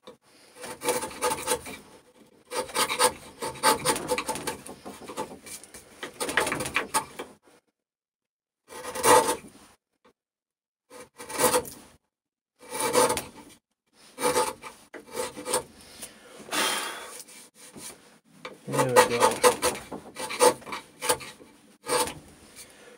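Hand cutting tool paring the bottom of a notch joint in birch: about a dozen short scraping strokes with brief pauses between, shaving the joint clean.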